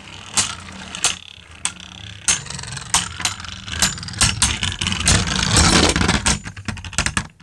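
Two Beyblade Burst spinning tops, one a Victory Valtryek, whirring in a stadium and clashing with sharp clicks about once or twice a second. The clashes come in a fast flurry near the end, then the sound stops suddenly as the battle ends.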